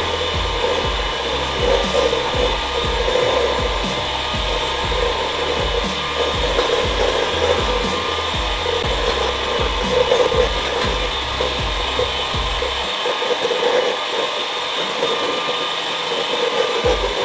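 Electric hand mixer running steadily on its lowest speed, its beaters whirring through pancake batter in a stainless steel bowl.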